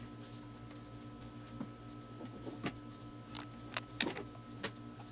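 Light clicks and taps from a Nikon 24-70mm f/2.8 zoom lens being handled for reassembly, about six scattered through a few seconds, the loudest about four seconds in, over a steady low hum.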